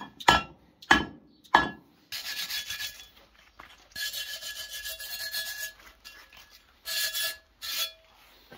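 Hammer striking a metal truck step plate three times in the first two seconds, each blow ringing, knocking old fixing remnants out of it. Then several bouts of harsh metal scraping follow, with the plate still ringing through them.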